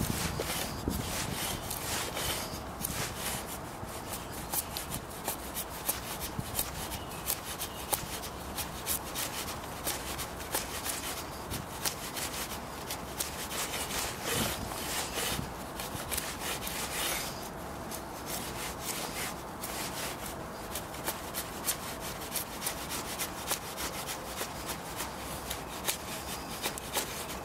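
A garden machete drawn along a log like a drawknife, shaving off wood in many short, repeated scraping strokes to flatten the top of the log.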